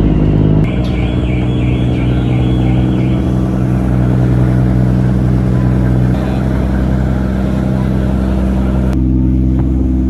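Boat engine running steadily, its pitch shifting slightly twice.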